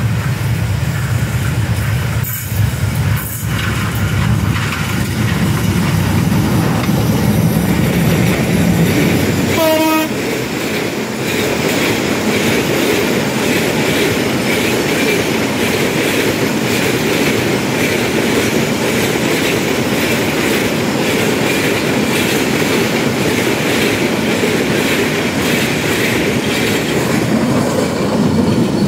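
Hyundai Rotem EMD GT38ACL diesel-electric locomotive passing with a deep engine rumble, and a brief horn sound about ten seconds in. After it a long train of tank wagons rolls by, the wheels giving a steady roar and a rhythmic clickety-clack over the rail joints.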